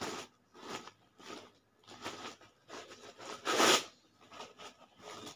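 Rustling and crinkling of plastic and paper medicine packets being handled, in several short bursts, with one louder, longer rasp about three and a half seconds in.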